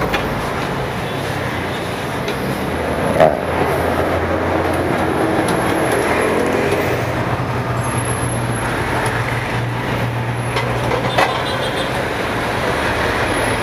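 Steady road-traffic noise with a low engine hum underneath, and two short knocks, one about three seconds in and one near the end.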